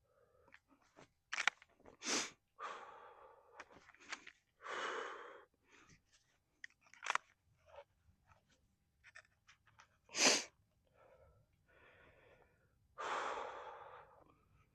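A person breathing and sniffing close to the microphone, with small scattered clicks; the loudest is a short sharp breath about ten seconds in.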